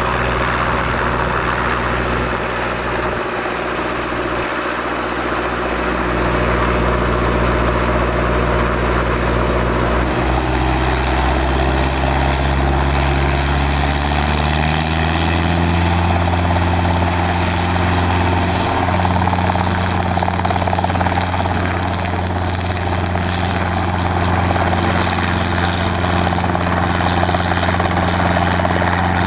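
Robinson R22 helicopter's four-cylinder Lycoming piston engine and two-blade main rotor running on the ground. About halfway through, the pitch rises over a few seconds as engine and rotor are brought up to flying speed, then holds steady as the helicopter lifts into a hover.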